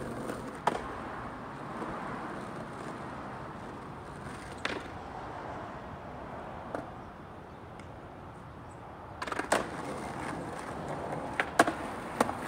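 Skateboard wheels rolling over rough asphalt. Now and then the board clacks sharply against the ground, with a quick cluster of clacks in the last few seconds as a trick is attempted.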